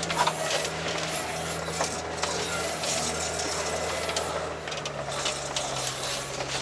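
Articulated tracked all-terrain vehicle driving uphill through deep snow: the engine runs steadily under a busy mechanical clatter of clicks and rattles. The engine's low hum drops away about three-quarters of the way through.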